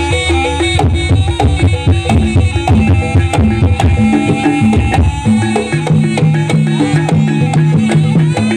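Live Javanese jaranan-style gamelan music: hand drums beating busily under a melody of held and repeated pitched notes.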